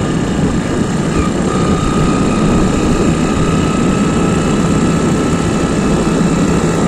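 Motorbike engine running steadily on the move, with wind rushing over the microphone and a faint steady whine from about a second and a half in.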